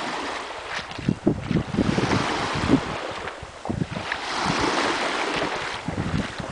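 Small sea waves washing with a steady hiss that swells about two-thirds of the way through, under irregular low rumbles of wind buffeting the microphone.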